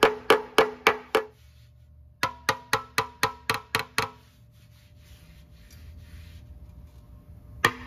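Hammer beating high spots down on a dented steel 1971 Honda CL350 gas tank to cave the damaged area before filling. Quick strikes come about three to four a second, each ringing in the hollow tank, in two runs with a short pause between, then a lull and one more strike near the end.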